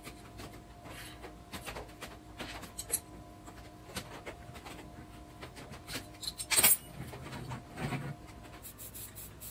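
Light clinks and knocks of a steel flat-bar ring stand on swivel casters being handled and rolled on a steel welding table, with one sharper metal clank about two-thirds of the way through.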